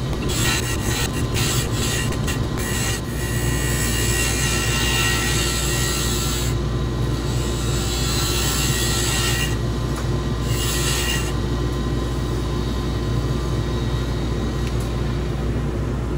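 A hand turning tool cutting a spinning laminated-wood pen blank on a mini wood lathe, a hissing scrape with rapid ticks at first. It breaks off twice in the middle as the tool is lifted away. Underneath is the steady hum of the lathe motor and the shop vacuum.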